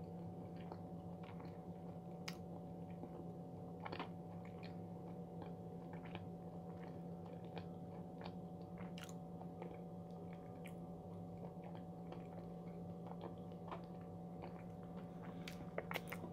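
Close-miked chewing of a macaron topped with candy, with scattered small mouth clicks and light crunches, over a steady low electrical hum.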